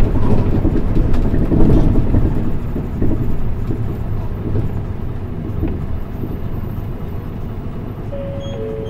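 Interior running noise of a Mitsubishi Fuso Aero Star PKG-MP35UM city bus: a low engine and road rumble that gets steadily quieter from about three seconds in. Near the end a two-note chime sounds, high then low.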